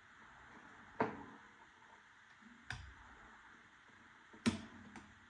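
Three sharp clicks of small hardware parts being handled and set down on a hard surface, spaced about a second and a half apart, over a faint steady hiss.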